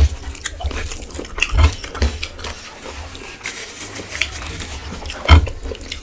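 Close-miked eating: a person chewing and biting food, with irregular wet smacks and clicks. Sharp loud ones come right at the start and about five seconds in.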